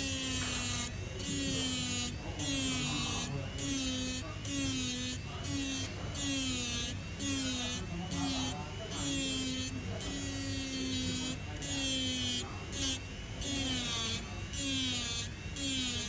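Small electric grinding pen buzzing as its tip grinds the metal back plate of an iPhone 7 home button. The buzz swells and dips in a repeating pattern about once a second.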